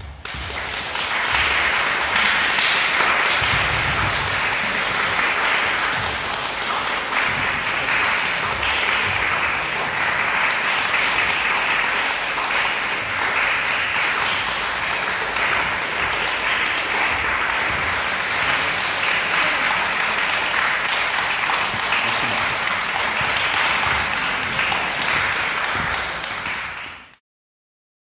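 Audience applauding: a dense, steady clapping that swells up within the first second or so and cuts off abruptly near the end.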